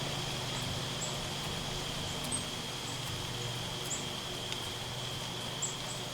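Woodland evening ambience: a steady high-pitched insect drone, with brief, very high bird chirps about once a second.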